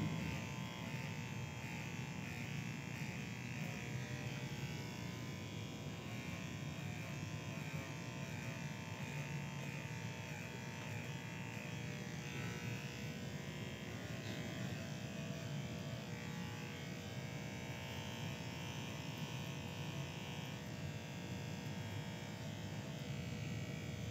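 Electric hair clippers running with a steady buzz while cutting hair.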